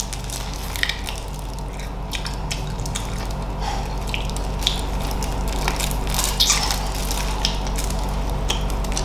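Close-up eating of chicken feet in Thai-style sauce: wet chewing and crunching clicks come irregularly, over a steady low hum. The chicken feet are crunchy.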